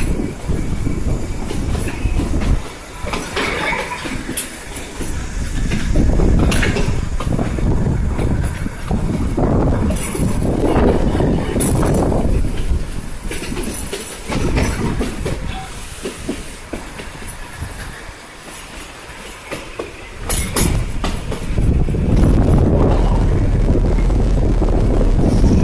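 Kalka–Shimla narrow-gauge toy train running on its rails, a rumble that swells and fades, with a few sharp clicks along the way.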